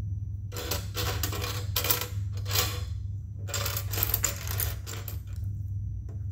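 Loose plastic Lego Technic pieces clattering and clicking against each other as a hand rummages through them, in two spells of a couple of seconds each.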